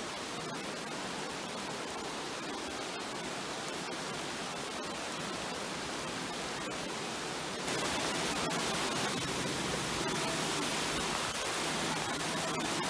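Steady rush of a swollen river in flood. About seven and a half seconds in it becomes louder, with the water churning through the openings under a bridge.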